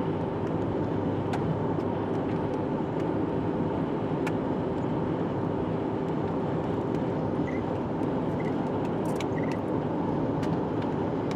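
Steady engine and road noise inside a moving truck's cabin, with a few faint clicks.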